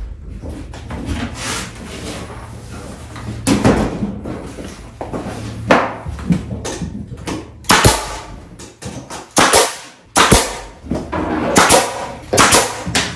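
Pneumatic nail gun firing nails into wooden wall framing: several sharp shots, one every second or two, coming closer together in the second half.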